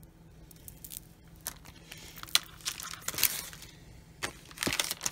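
Small plastic resealable bead packets crinkling as they are handled, in irregular crackly bursts.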